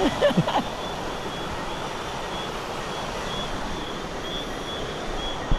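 Steady rush of flowing river water, with a faint high chirp repeating every second or so. A single knock comes near the end.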